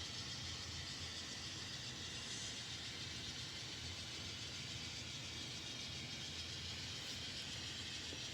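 Faint steady running of an N scale model train on the track, heard as an even hiss with a low hum and no breaks; the locomotive sound decoders are off.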